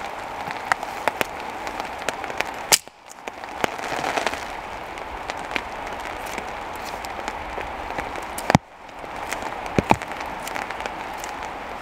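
Rain falling on a tarp shelter: a steady hiss with many sharp taps of heavier drops striking the sheet. Twice a loud tap is followed by the sound briefly dropping away.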